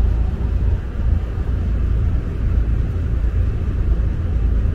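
Steady low rumble of a vehicle in motion.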